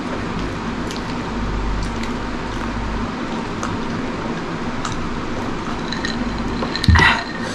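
Quiet sipping and swallowing of water from a drinking glass over a steady background hum, with a few faint small clicks. About seven seconds in comes a single loud knock, the glass being set down on the table.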